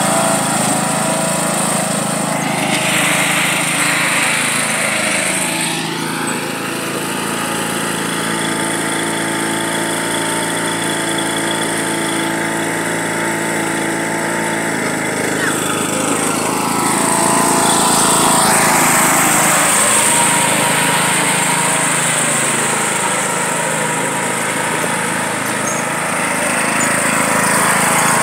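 John Deere riding lawn mower engine running hard under load. Its note climbs about six seconds in, holds steady, and drops about sixteen seconds in, with a rushing hiss over it at times.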